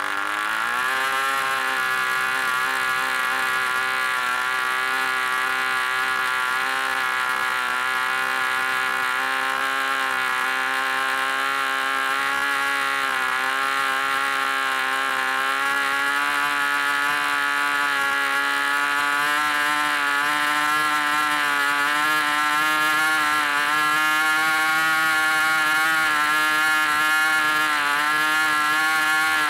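D-C Tornado Twin 5cc two-stroke boxer-twin glow engine swinging a 10x6 propeller, revving up in the first second after catching, then running at a steady high drone that creeps a little higher in pitch in the second half, about 8,300 to 9,200 rpm. It is still hunting slightly, with a small waver in pitch, which the owner puts down to fuel bubbles and a mixture that wants leaning a touch more.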